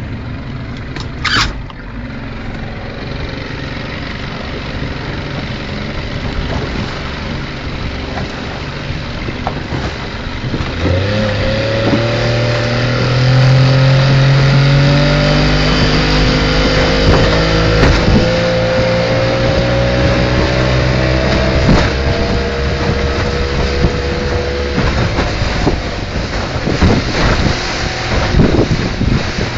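Evinrude 70 hp three-cylinder two-stroke outboard run at full throttle from a stop onto the plane, one cylinder low on compression. The motor's note emerges about a third of the way in and climbs slowly as the boat gets up to speed, over a steady rush of wind and water. Near the end it fades back into the rush.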